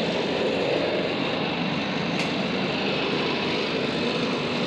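Steady mechanical drone of a houseboat's machinery running, a bit noisy, with a faint tick about two seconds in.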